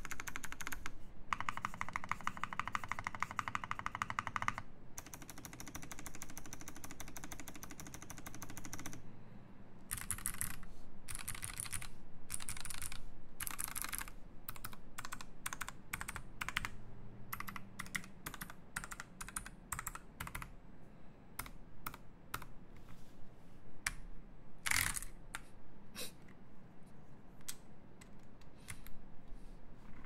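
Typing on a Medicine 60 mechanical keyboard with lubed Zealistotle switches on a PVD brass plate. The first several seconds are fast, continuous keystrokes. After that the keystrokes come slower and separately, with a few louder strokes.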